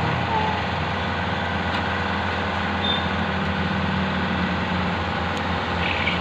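Steady mechanical drone with a low hum running under it, even throughout.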